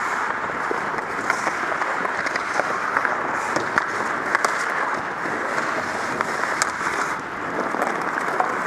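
Ice hockey skate blades scraping and gliding on the ice, a steady hiss, with scattered sharp clicks of sticks and puck.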